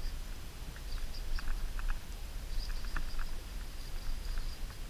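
Wind rumbling on the microphone, with scattered small, irregular clicks and taps.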